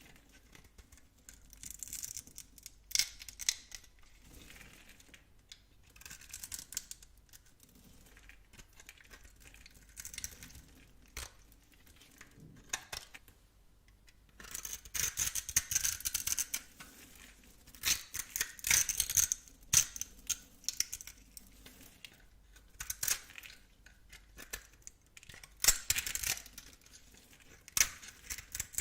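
Knife blade cutting and scraping through dry bar soap, in crisp, crackly strokes with pauses between them. Longer runs of scraping come about halfway through and again a few seconds later, and there are sharp single cuts near the start and near the end.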